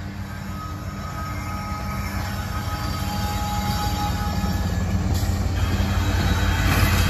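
CSX freight train's diesel locomotive passing close by, its engine running and the wheels rolling on the rails, growing steadily louder as the locomotive draws level.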